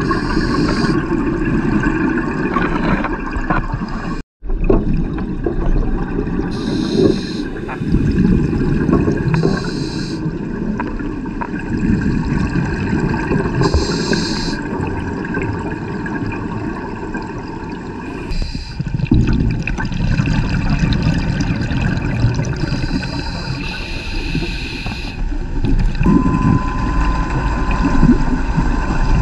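Underwater sound picked up by a diver's camera: a steady low rumbling water noise, with a short high hiss every few seconds, typical of a scuba regulator's inhalations. The sound cuts out for a moment about four seconds in.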